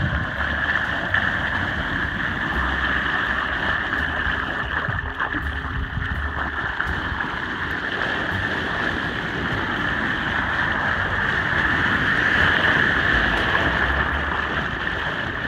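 Steady rush of rain falling on a flooded street, with floodwater swirling and gurgling down a storm drain, and wind gusting on the microphone.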